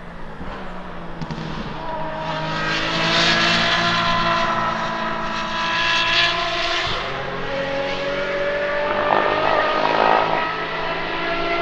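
Apollo Intensa Emozione's 6.3-litre naturally aspirated V12 accelerating on track at high revs. Its pitch climbs, drops once about seven seconds in as it shifts up, then climbs again, loudest around ten seconds in.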